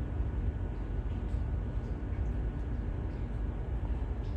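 Steady low outdoor rumble with an uneven, jagged level and a few faint ticks.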